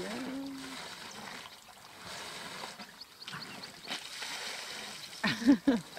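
Water trickling and splashing as elephants drink, pouring water from their trunks back into the waterhole. A short voice-like sound comes at the very start, and a louder one about five seconds in.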